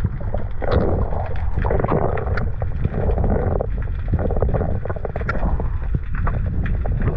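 Underwater sound heard through a camera housing: a steady low rumble with surges of rushing water about once a second, and scattered sharp clicks and crackles.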